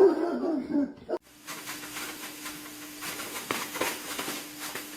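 A dog whining for about a second. It cuts off into a steady hiss with a low hum and a few faint clicks.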